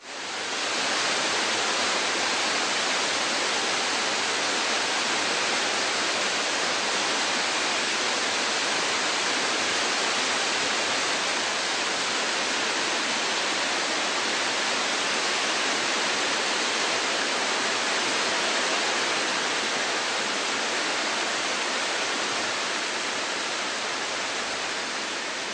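Steady rushing of a waterfall, the water falling onto rock and into a pool, fading in at the start.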